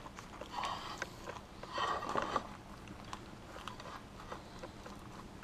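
Faint rustling and a few light taps of a burrito being rolled up by hand on a plate: two soft rustles in the first half, then scattered small clicks.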